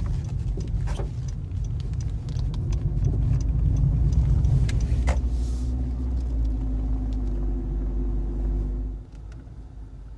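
Car running with a steady low rumble that drops away sharply about nine seconds in, as the car stops and the engine is switched off.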